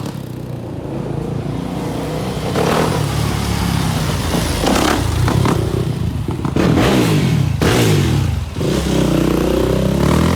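Small off-road vehicle engine revving, its pitch rising and falling again and again, with a few sharp clattery hits along the way.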